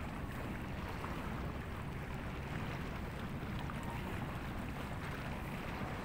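Steady low waterfront rumble of wind and sea, with no distinct events.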